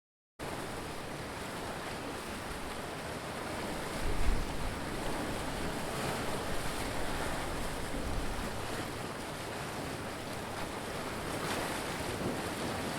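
Ocean surf: waves breaking and washing in a steady rush, with a brief low rumble about four seconds in.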